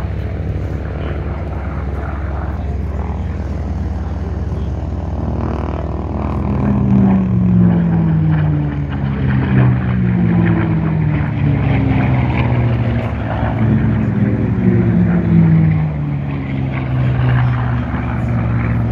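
Racing warbirds with Allison and Merlin V-12 piston engines flying past one after another. A steady low engine drone first, then from about six seconds in several passes in a row, each engine note falling in pitch as the plane goes by.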